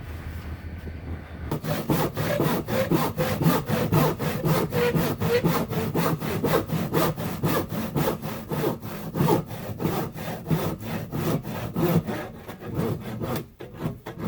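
Footsteps crunching on loose, gritty ground while walking, a quick, regular crunch about four times a second that starts about a second and a half in.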